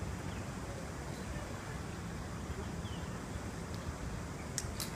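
Outdoor wind buffeting the microphone: a steady low rumble, with a few sharp clicks near the end.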